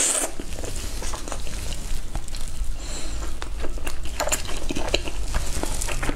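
Mouth sounds of a person eating braised chicken wings: wet chewing and sucking meat off the bones, with scattered small clicks, over a low steady hum.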